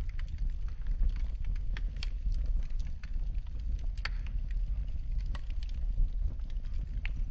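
Wood fire burning in a fireplace: a steady low rumble of flames with irregular sharp crackles and pops, a few a second, one louder pop about four seconds in.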